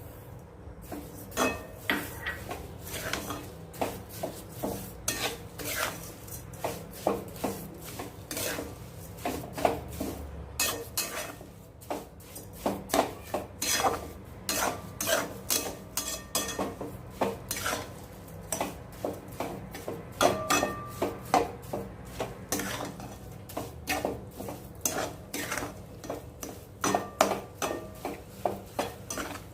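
Grated coconut, milk and sugar being stirred in a kadhai: the utensil scrapes and knocks against the pan in repeated strokes, about one or two a second, as the sugar is worked in to melt.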